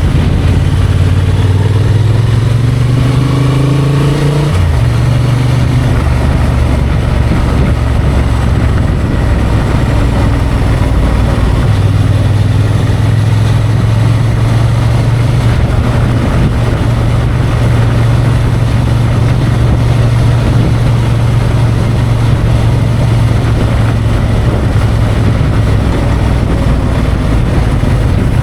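Honda XL750 Transalp's parallel-twin engine under way: the revs rise for about four seconds, drop suddenly, then hold at a steady pitch for the rest.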